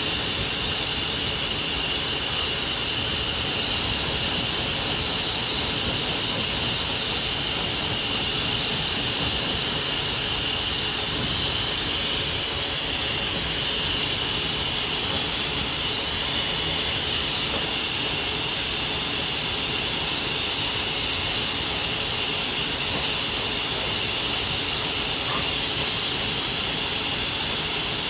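High-velocity pet dryer blowing steadily, a constant airy rush with a high hiss on top and no change in level.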